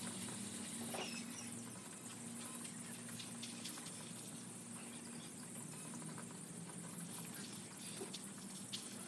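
A flock of young broiler chicks peeping together in many short overlapping calls, over a steady low hum.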